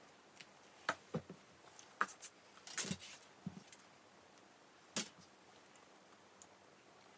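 Faint rustling and soft taps of clothes being handled and folded, a handful of short sounds in the first five seconds, then only quiet room tone.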